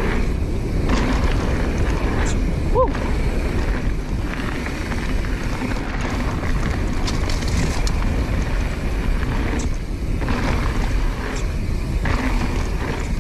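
Wind rushing over the microphone with a dense low rumble, typical of a camera riding along on a mountain bike at speed, with a couple of short squeaks about three seconds in.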